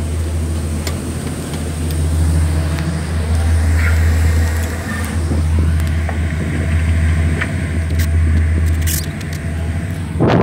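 Steady low drone of the rescue ship's engines, with a few light knocks.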